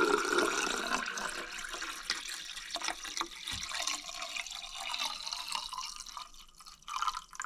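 Room-temperature water being poured into the water reservoir of a Gevi automatic pour-over coffee machine. It starts as a steady pour with a ringing tone and fades over the next few seconds to a thin trickle and a few drips.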